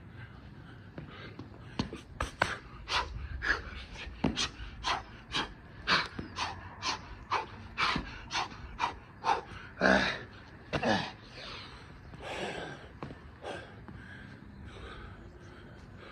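A man panting hard through a set of Navy SEAL burpees: short, sharp breaths at about two a second, easing after about 11 s into a few slower, softer breaths.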